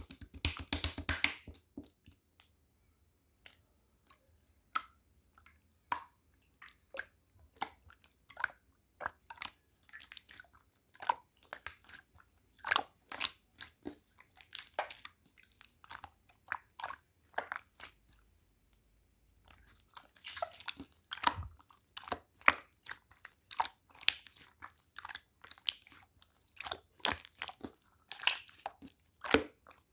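Pale mint clear slime being handled, pressed and squeezed, giving sharp sticky clicks and pops. They come in dense crackling runs at the start, about two-thirds in and near the end, and as scattered single pops in between.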